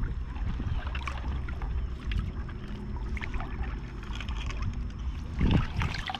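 Shallow seawater sloshing among rocks over a steady low rumble on the microphone, with small scattered splashes. About five and a half seconds in comes a louder splash and dripping as a mesh crab net is lifted out of the water.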